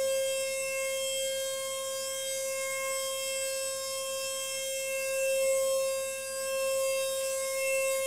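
DATRON neo CNC mill's 2 kW spindle spinning an 8 mm single-flute end mill at 32,000 RPM through a circular pocket cut, a steady high-pitched whine under heavy cutting load.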